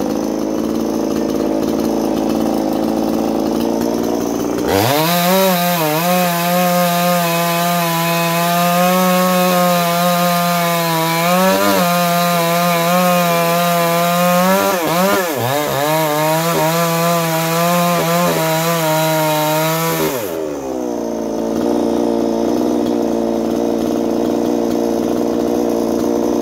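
Ported Chinese 45cc two-stroke chainsaw idling, then opened to full throttle about five seconds in to cut a log, its pitch dipping briefly a few times as the chain bites. It drops back to idle near the end.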